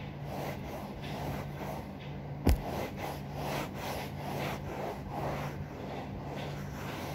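Cloth rubbing back and forth over a sofa's smooth upholstery, scrubbing toothpaste into the dirty surface, about two strokes a second. One sharp knock about two and a half seconds in, over a steady low hum.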